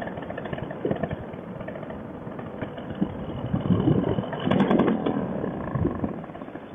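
Fresh Breeze Monster paramotor engine running unevenly at reduced power, with a steady rush of air around it. The engine is losing power, a fault the owner traced to a failing stator and ignition coil that left it with no spark.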